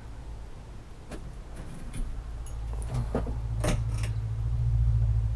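Handling noises: a few separate sharp knocks and clicks over a steady low rumble that grows louder toward the end.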